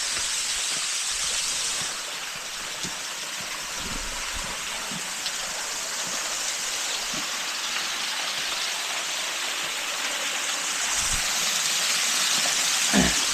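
Waterfall, water rushing steadily and evenly, swelling a little near the end, with a few faint knocks.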